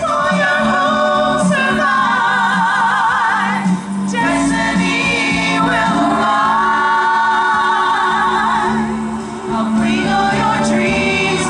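Several voices singing long held notes in harmony with vibrato over a musical backing.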